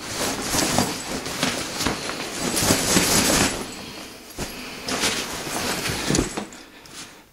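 Fabric of a Ridgeline 65-litre hiking backpack rustling and scraping as it is handled and moved about, with a couple of sharp knocks.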